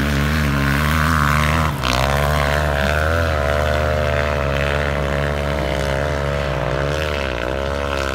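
Motor engines running loud and close: a steady low engine note underneath, with a motorcycle's engine pitch rising and falling again and again as it is worked on the dune. The sound briefly dips about two seconds in.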